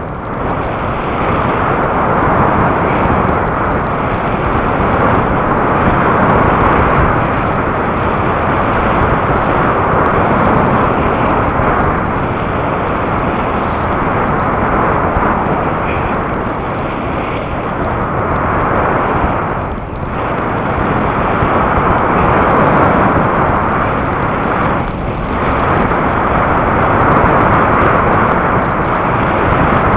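Steady rush of wind on the microphone and skis hissing through powder snow as a skier descends, easing off briefly twice in the second half.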